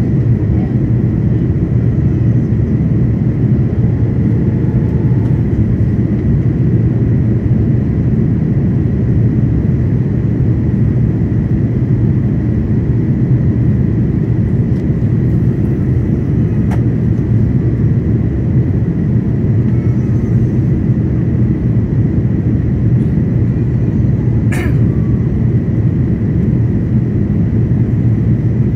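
Steady low roar of cabin noise inside an Airbus A330-900neo on approach, from airflow and its Rolls-Royce Trent 7000 engines, with a faint steady whine over it. A single sharp click sounds near the end.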